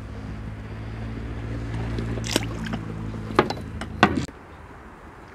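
A motor running with a steady low hum that grows louder, with a few sharp knocks, then cuts off suddenly about four seconds in.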